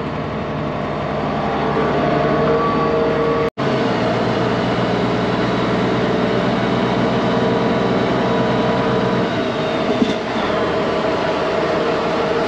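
Diesel truck engine running steadily while the truck's raised dump body unloads chopped corn silage at the bunk. The low part of the engine note drops about nine seconds in, and there is a single short knock about a second later.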